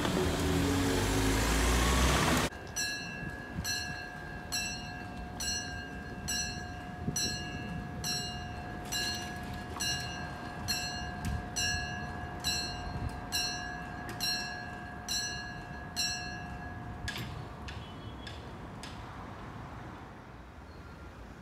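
Level crossing mechanical warning bells ringing rapidly, about two strikes a second over a steady ring, while the crossing closes; they stop about 17 seconds in, followed by a few clicks. Before that, loud rumbling noise is cut off abruptly about two and a half seconds in.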